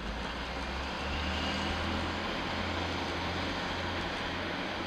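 Noto Railway NT100 diesel railcars running past, their engines a steady low drone, with a faint high whine about a second and a half in.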